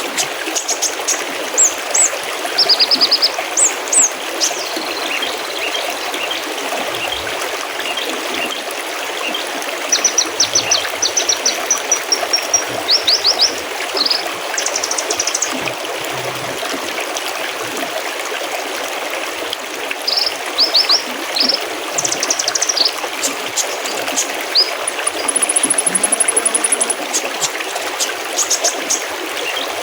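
Mountain stream babbling and trickling steadily, with small songbirds breaking in several times with bursts of quick, high chirps.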